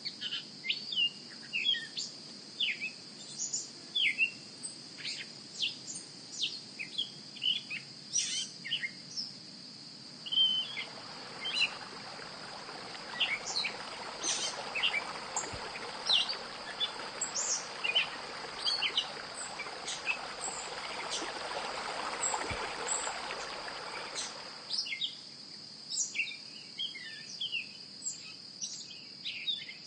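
Birds chirping over a steady high-pitched insect drone. About a third of the way in, a steady hiss rises up underneath and runs for about fifteen seconds before cutting off.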